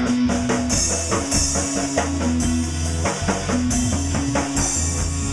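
Rock music played on drum kit, guitar and bass, with steady drum hits over held bass notes.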